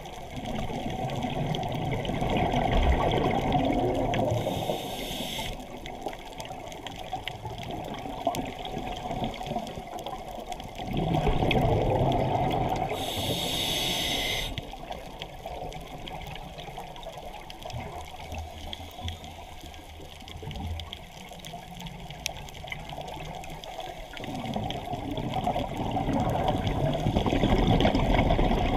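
Muffled rushing water noise heard through an underwater camera, swelling and fading every several seconds, with two short hissing bursts, about five and thirteen seconds in.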